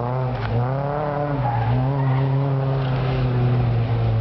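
Renault Clio's engine revving hard through a cone slalom, its pitch climbing and dropping several times as the car accelerates and lifts between the cones.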